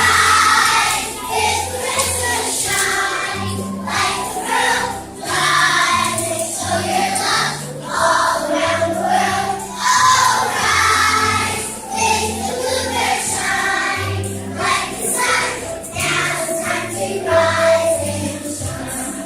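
A large children's choir singing with an instrumental accompaniment that has a steady bass line.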